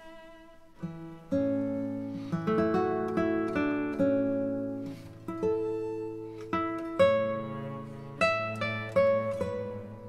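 Background music: acoustic guitar picking a steady run of notes, each ringing and fading, over a low held note.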